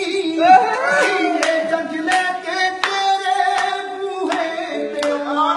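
A voice singing a Punjabi song in long, gliding held notes, with sharp hand strikes keeping time about every half to three-quarters of a second.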